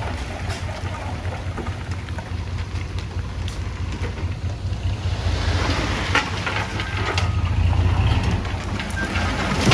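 Heavy earthmoving machinery's diesel engine running with a low, pulsing rumble, with scattered clanks and the rattle of stone and dirt on top.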